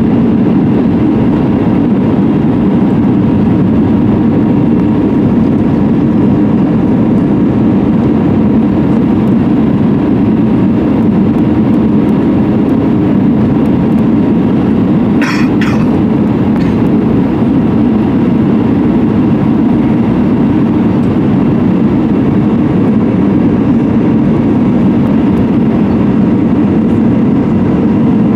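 Steady in-cabin noise of an Airbus A320-200 on approach, heard from a seat beside the engine: a constant rumble of engine and airflow with a faint steady tone above it. A few brief clicks come about halfway through.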